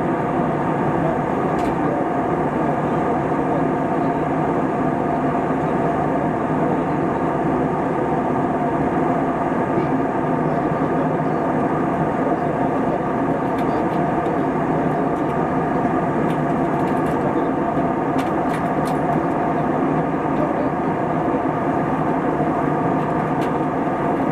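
Steady drone of an Airbus A320 heard from inside the cabin: an even rush of engine and air noise with a few held tones over it, unchanging in level throughout.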